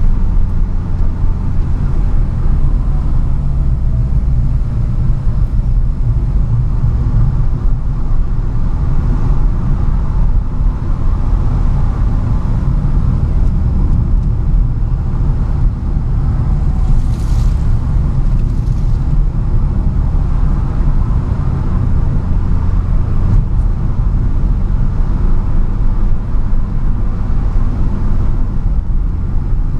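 A car driving, heard from inside the cabin: a steady low rumble of engine and tyres. Two brief high hisses come a little past halfway.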